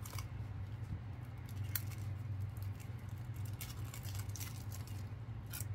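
Cellophane wrapping crinkling and small clicks of a cardboard box being handled as an eyeshadow compact is unpacked, in scattered short bursts, over a steady low hum.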